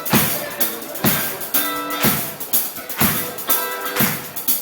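Live band playing: a drum kit keeping a steady beat, about one strong hit a second, under sustained guitar chords.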